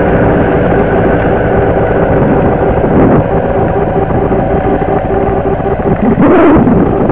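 Tractor engine running steadily while towing a trailed manure spreader, with a short, louder rush of noise about six seconds in.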